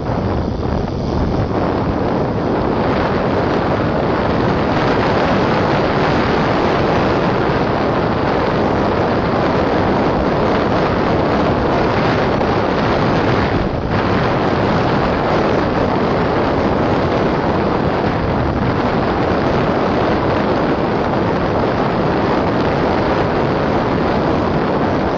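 Steady wind rush on the microphone of a camera travelling downhill at speed, a loud even roar with no clear engine note, settling in after about two seconds.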